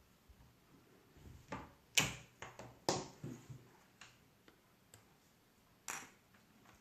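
A series of sharp clicks and knocks, about six in all, from small hard objects being handled; the loudest come about two and three seconds in.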